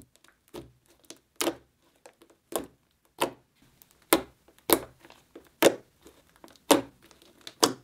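Thick slime being pressed and poked with fingers against a table, giving a series of sharp, squelchy pops and clicks, roughly one every half-second to second, louder in the second half.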